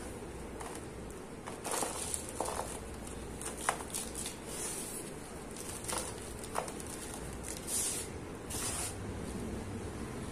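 Dry sand-and-cement pieces being crumbled by hand, giving irregular gritty crunches with a few sharper cracks. Powder and grains hiss as they sprinkle onto a pile.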